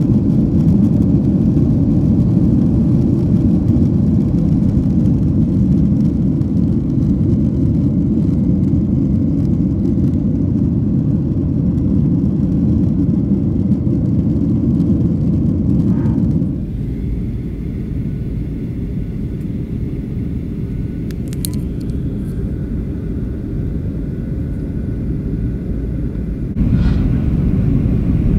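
Airliner cabin noise: a steady low rumble of engines and airflow. About 16 seconds in it drops suddenly to a quieter hum, and it comes back up sharply about ten seconds later.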